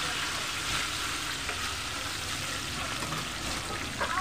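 Chicken pieces deep-frying in hot oil in a pan: a steady sizzling hiss with scattered small crackles, and a brief louder crackle near the end.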